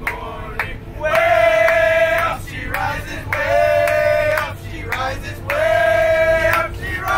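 A group of young voices singing together in unison, three long held notes with short breaks between them.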